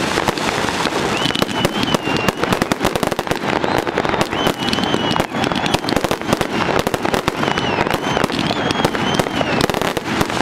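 Aerial fireworks display: a dense, unbroken barrage of bangs and crackles, with short high whistles now and then.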